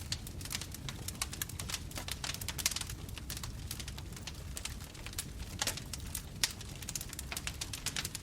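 Bonfire crackling: dense, irregular pops and snaps of burning wood over a steady low rumble of flames, with a few louder pops scattered through.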